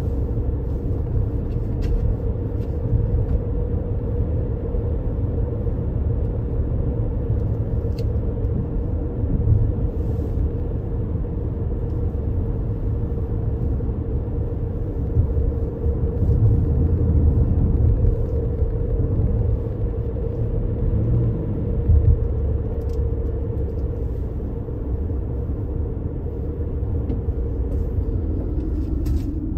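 Road noise heard inside a moving car: a steady low rumble of tyres and engine with an even hum, which falls in pitch near the end as the car slows.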